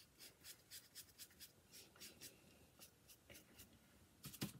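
Faint, quick scratching strokes of a stiff paintbrush dry-brushing paint onto a lightweight clay eclair, about three to four strokes a second, with a louder scratchy brush stroke near the end.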